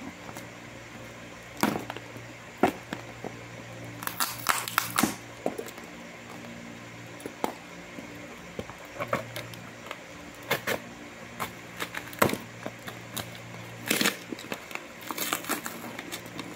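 Scissors snipping and cutting through a brown-taped cardboard box: a run of sharp snips and crackles, bunched in quick clusters. A steady electric-fan hum runs underneath.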